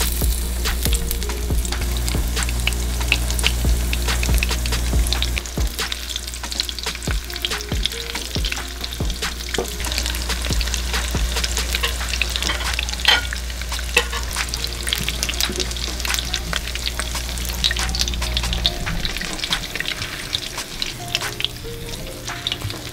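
Doritos-crusted crappie pieces frying in shallow oil in a nonstick pan: a steady, dense crackling sizzle.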